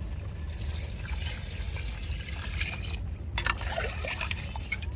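Water being poured into a cooking pot of oil-fried crabs, a steady trickling pour that breaks off briefly about three seconds in and then resumes.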